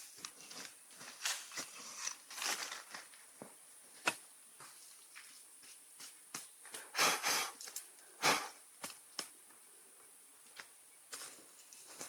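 Irregular clicks, crackles and knocks of campfire cooking, with louder knocks about seven and eight seconds in, over a steady high insect drone.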